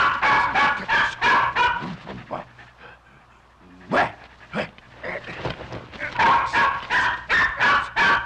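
A dog barking in quick runs of short, sharp barks, about four a second. The barking lulls about two to three seconds in and then builds back to steady barking near the end.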